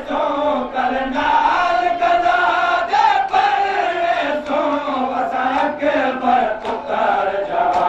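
Men's voices chanting a noha, a Shia lament, in sustained melodic phrases that rise and fall in pitch, with the sound of a large crowd of mourners around them.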